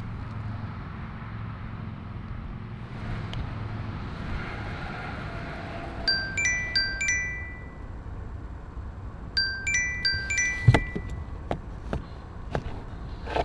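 Smartphone timer alarm going off: a short chime-like run of bright notes, played twice about three seconds apart, over a steady low background hum.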